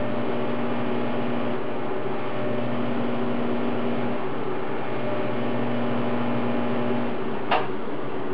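TIG welder humming steadily while stainless steel pipe is welded, a higher buzz within the hum cutting out and coming back a few times. A short sharp click near the end.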